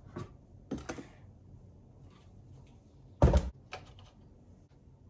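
A small Crock-Pot slow cooker set down on a wooden workbench: a few light knocks, then one heavy thump a little over three seconds in, followed by a smaller knock.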